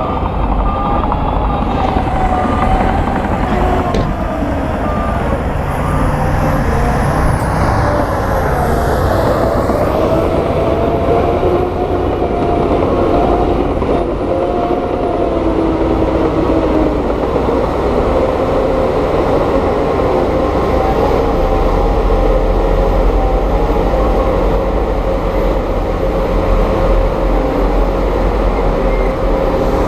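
Heavy diesel construction machinery running steadily, engine pitch drifting slowly up and down as the machines work.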